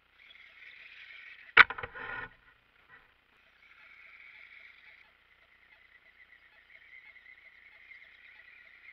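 Small RC crawler's electric motor and gears whining on and off as the truck climbs over dirt. About a second and a half in, a single sharp knock, the loudest sound, is followed by a brief rattle.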